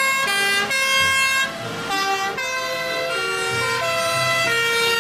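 Fire engines' warning horns sounding together, their reedy tones stepping up and down in pitch every half second or so, as a convoy of fire trucks runs on an emergency call.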